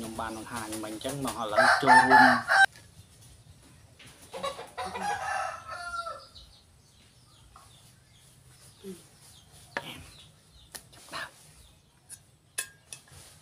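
A rooster crowing, the crow building in loudness and cutting off sharply about two and a half seconds in, followed a couple of seconds later by a second, shorter call. Later come a few light clinks of a spoon and fork against a metal plate.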